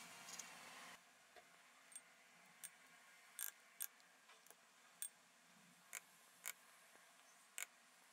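Faint food-prep sounds: a soft rustle in the first second, then about ten short, sharp clicks and taps at irregular intervals as a wooden spoon scoops avocado from its skin into bowls.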